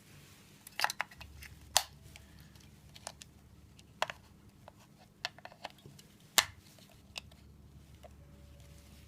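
Irregular sharp clicks and taps, about nine, the loudest about two and six seconds in: small parts of a wireless door chime set being handled, with no chime tone sounding.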